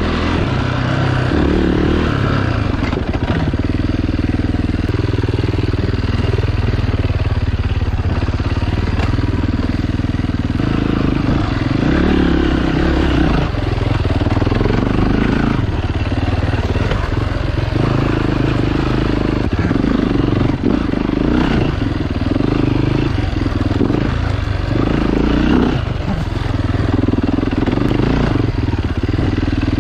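Off-road motorcycle engine running continuously while being ridden along a trail, its note rising and falling every few seconds with the throttle.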